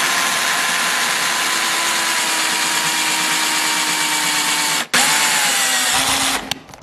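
Power drill with a 3/8-inch bit boring a hole through the centre of a 3-inch PVC pipe cap, its motor running with a steady whine. It stops briefly about five seconds in, runs again for about a second, then winds down near the end.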